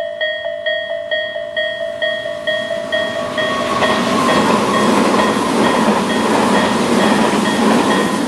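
Japanese level-crossing warning bell (Tobu's "sound A" electronic bell) ringing about twice a second, then a Tobu Nikko Line train passing over the crossing from about three seconds in. Its rumble swells over the bell and clears near the end, when the bell comes through again.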